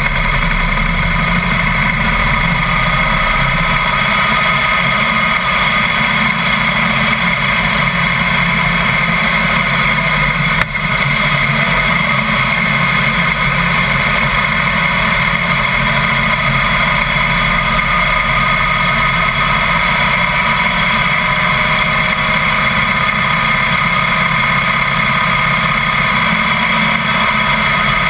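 Harley-Davidson Heritage Softail's V-twin engine running steadily as the motorcycle rides along at street speed, picked up close by a camera mounted low beside the front wheel; its pitch drifts up and down slightly with speed. A brief knock about ten and a half seconds in.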